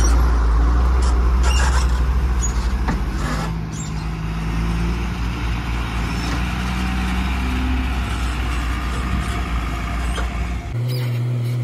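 Tata 2518 tipper truck's diesel engine running as it drives slowly over rough dirt, a deep steady rumble with a few short high squeaks in the first few seconds. The engine sound cuts off suddenly near the end.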